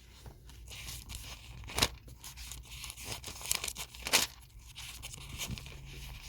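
Bible pages being leafed through and turned, a continuous papery rustle with several sharper crackles as pages flip over.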